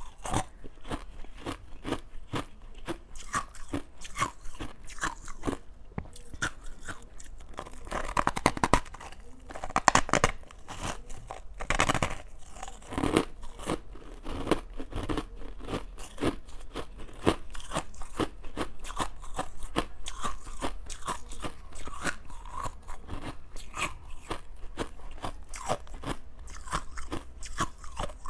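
Close-up crunching of crushed ice being bitten and chewed: dense, irregular sharp crunches several times a second, with a few louder bursts of crunching about a third and halfway through.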